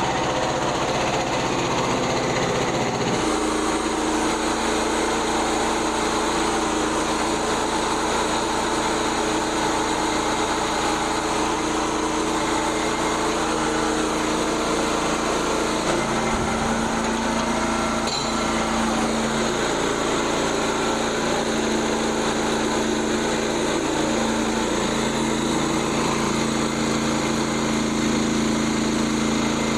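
Small gasoline engine of a Frontier OS27 portable bandsaw sawmill running steadily, its note shifting about three seconds in.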